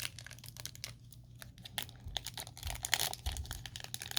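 A trading card pack's wrapper being torn open and crinkled: a run of short crackles that gets busier about halfway through.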